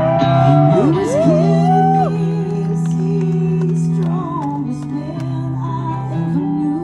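Live amplified music: a voice singing gliding, held notes over sustained electric guitar chords.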